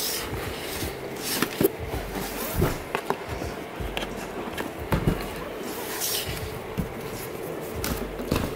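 A large cardboard sneaker box being handled and its lid lifted open, with scattered knocks and light rustling of cardboard.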